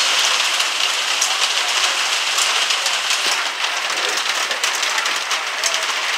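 Steady hurricane rain falling, a constant hiss flecked with the ticks of individual drops.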